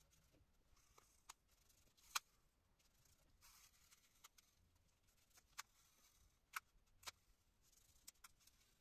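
Masking tape being pulled off the roll and pressed along a painted rudder: faint rustling with a handful of sharp small clicks, the loudest about two seconds in.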